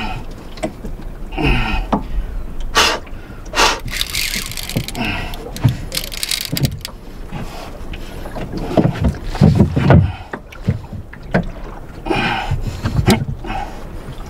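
Water slapping and sloshing against the hull of a small open boat, with scattered sharp knocks and two short hissing rushes about four and six seconds in.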